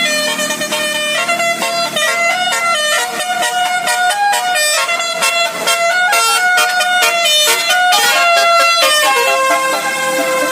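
Bus 'basuri' telolet musical horn playing a tune: a run of horn notes stepping up and down in pitch, one after another.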